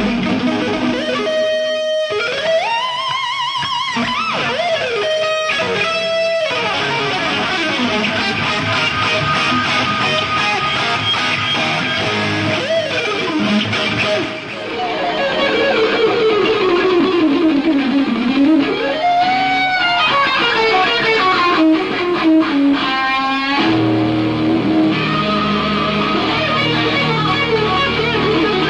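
Electric guitar solo on a Fender Stratocaster: fast single-note runs with repeated sweeping pitch bends and swoops that rise and fall. There is an abrupt break about halfway through.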